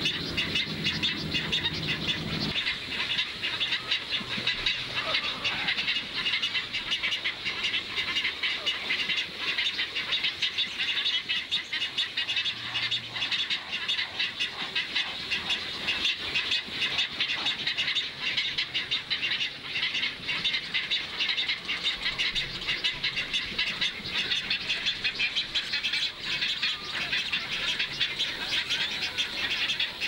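Steady outdoor nature ambience: a dense chorus of animal calls, pulsing rapidly and without a break.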